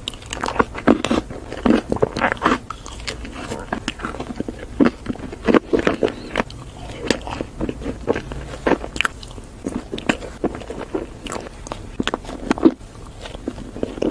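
Close-miked eating of ice cream: repeated bites and chewing, heard as many short, sharp, irregular crackles.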